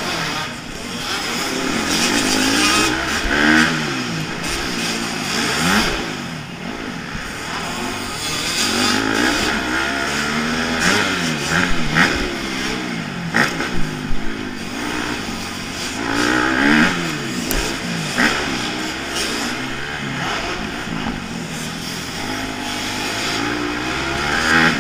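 Onboard sound of a motocross bike's engine, revving up and falling back again and again as the throttle is opened and shut around the dirt track, with a few short sharp knocks along the way.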